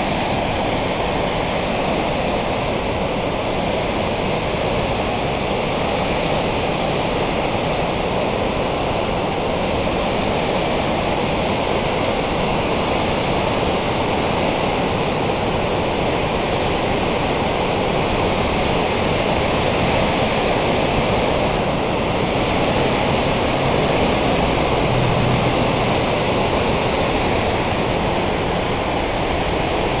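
River water pouring over a dam spillway and crashing into churning whitewater below: a loud, steady rush.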